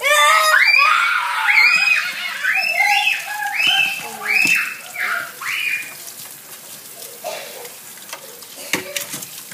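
A person shrieking in a string of about eight short, high-pitched squeals over the first six seconds, over tap water running into a metal sink.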